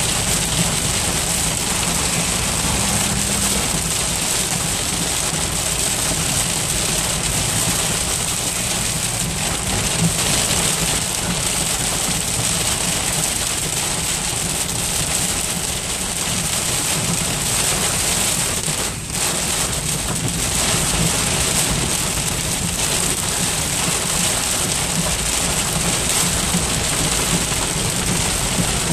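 Heavy rain pelting a moving car's windshield and roof, heard from inside the cabin, steady throughout, mixed with wet tyre and road noise.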